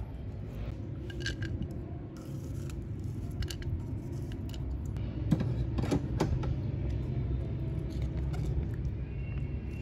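Kitchen prep handling sounds: minced garlic and onion tipped from a container into a ceramic bowl, and a plastic sauce sachet being handled, with scattered sharp clicks and taps over a steady low hum. The loudest click comes a little after five seconds.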